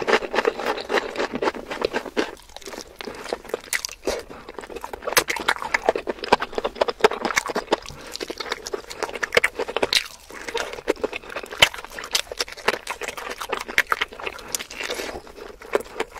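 Close-miked chewing and biting of chicken: a steady run of rapid, irregular wet clicks and crackles from the mouth, with short pauses between bites.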